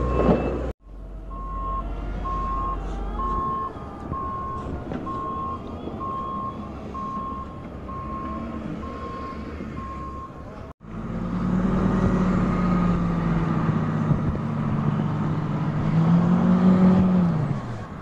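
Reversing alarm on heavy snow-clearing machinery beeping about once a second over a running diesel engine. After a cut about 11 s in, a louder tractor engine works under load, its pitch rising and then dropping near the end.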